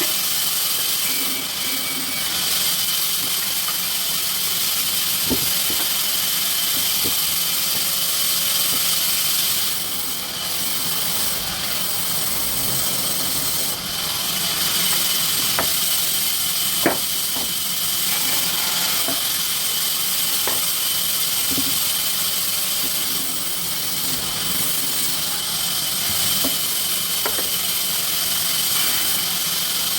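Sawmill machinery running steadily with a continuous high hiss and a few sharp clicks and knocks.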